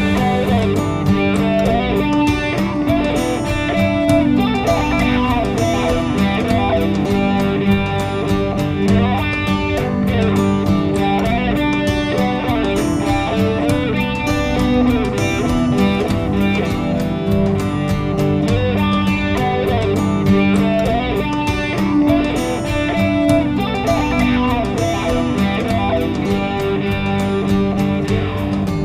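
Background music track: guitar music with strummed and plucked guitars over a steady beat.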